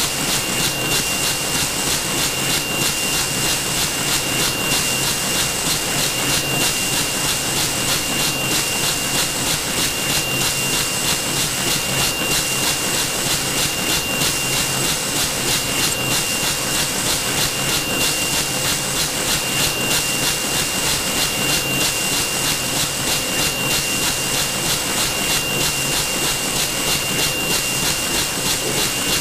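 Century-Tech CT-9914 left-handed servo wicketer running at speed, its rotating arms sweeping plastic bags onto the wicket stack. A steady machine noise with a fast, even beat, over a steady high whine.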